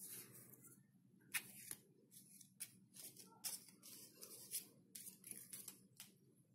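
Faint, irregular clicks and rustles of hands handling coins and paper bills laid out on a tiled floor.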